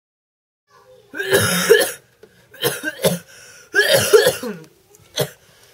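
A teenage boy coughing hard in several separate fits, the first and longest about a second in, then shorter ones.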